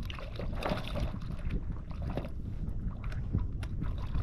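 Wind buffeting the microphone with a steady low rumble, with scattered light taps and knocks.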